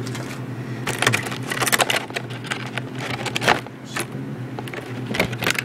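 Handling noise from plastic packaging and a bag of BBs being moved about: irregular clicks and rustles, over a steady low hum.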